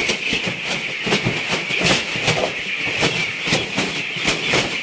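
A large flock of young chicks cheeping all together as a dense, steady high chatter, with frequent sharp clicks and knocks through it.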